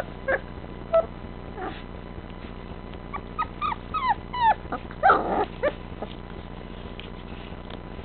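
Three-week-old puppies whining: a few short high squeaks in the first second, then a quick run of falling-pitch whines from about three seconds in, ending in one louder, rougher yelp about five seconds in.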